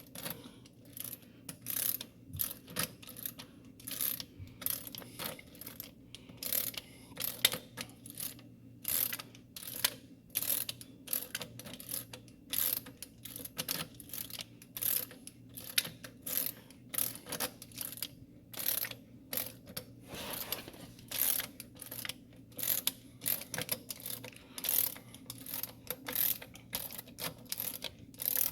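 Hand socket ratchet clicking through a long run of short back-and-forth strokes, working the 18 mm bolt of a Dodge Dart's lower engine mount.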